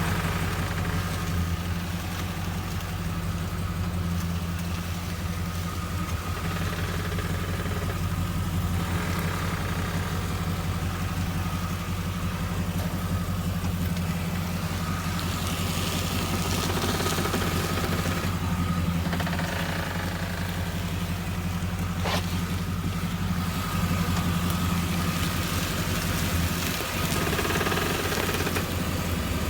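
2016 Ford Mustang GT's 5.0-litre V8 idling steadily, with a grinding noise that comes and goes in several spells as the steering wheel is turned.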